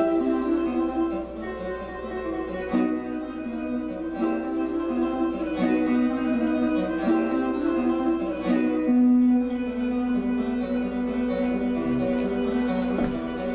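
Acoustic guitar music, plucked notes played in a steady run.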